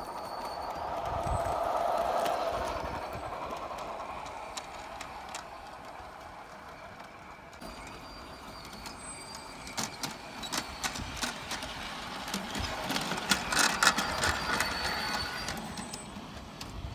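Large-scale garden-railway toy train running on its track: a whir of motor and wheels that swells as it passes close by about two seconds in, then from about ten seconds a run of sharp clicks and rattles, loudest around fourteen seconds, as the wheels clatter over the track.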